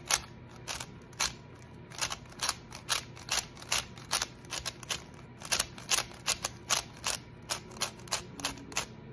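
Layers of a new, unlubricated MoYu WeiLong WRM V9 magnetic 3x3 speed cube being flicked and turned. It makes a run of sharp plastic clicks, about three a second and unevenly spaced.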